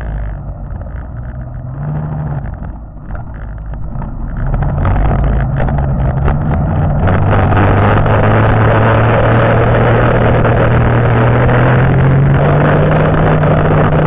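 Two-stroke engine of a 1992 Arctic Cat Panther snowmobile running under way, muffled by the waterproof camera case so that it sounds like a four-stroke. It runs unevenly for the first few seconds, then about four seconds in it opens up and holds a louder, steady speed, its pitch slowly rising.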